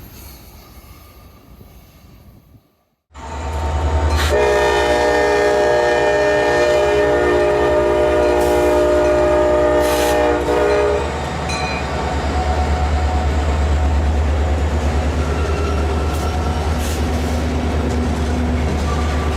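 Added train sound effect: a locomotive's low, steady engine rumble starting suddenly about three seconds in after a brief silence, with one long chord-like air horn blast lasting about seven seconds, after which the rumble runs on.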